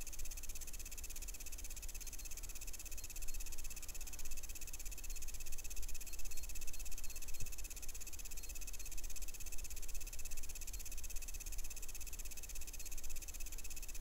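Starlink satellite dish giving off a steady, quiet electronic buzz with a rapid, chirring pulse, heard with the microphone up against the lower right-hand corner of the antenna. The owner guesses the noise is normal.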